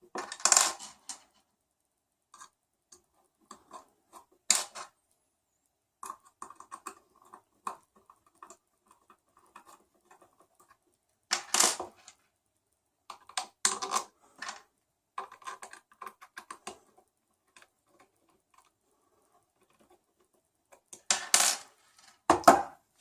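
Small metal screws and plastic printer parts clicking and rattling as the screws are picked up and started by hand, in scattered bursts of light clicks with a few sharper knocks.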